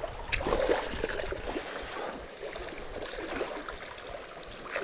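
Water noise from the river: a steady splashing and gurgling rush as a hooked bass is worked in close, with one sharp click about a third of a second in.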